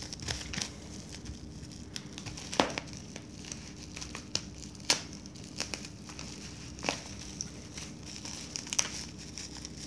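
Plastic bubble wrap crinkling and rustling as it is peeled away from a packaged box by hand: irregular small crackles with a few louder sharp snaps.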